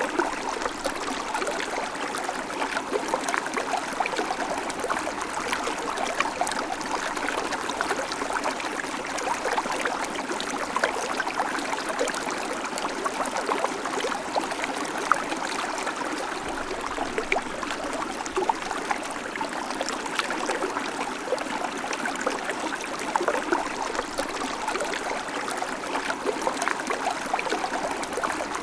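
Babbling creek: water running steadily over stones with a continuous trickling, splashing rush.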